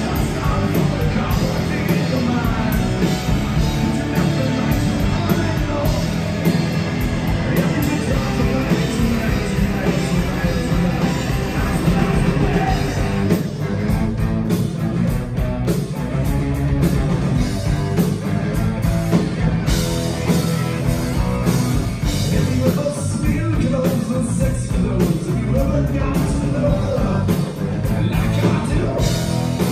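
Live rock band playing a song, with electric guitars, bass guitar and drum kit under a male lead vocal.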